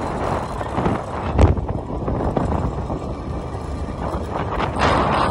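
Riding a motor scooter: wind buffeting the microphone over the rough, rattling noise of the ride, with one sharp thump about a second and a half in.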